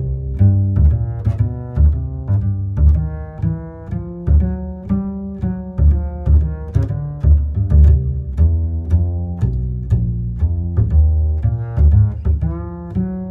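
Background music: low plucked and bowed strings with a steady, even pulse of short notes.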